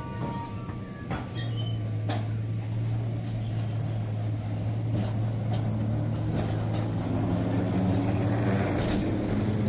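A vehicle running with a steady low hum that starts about a second in, its pitch rising a little near the end, with a few sharp clicks and knocks.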